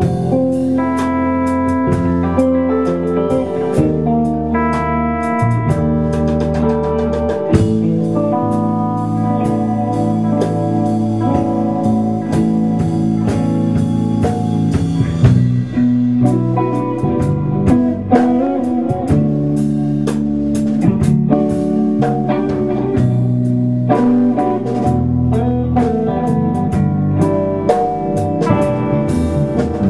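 Live blues trio: electric guitar playing held, singing notes over bass guitar and drum kit, with steady cymbal strokes that thin out about halfway through.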